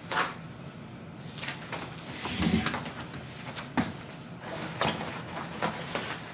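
Scattered clicks and knocks from the plastic and metal parts of a Baby Trend playpen being handled during assembly, with a dull thump about two and a half seconds in.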